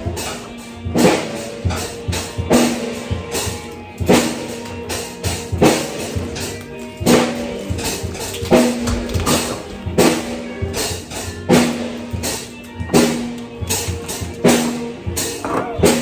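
Drum kit being played, with a heavy hit about every one and a half seconds and lighter beats between them.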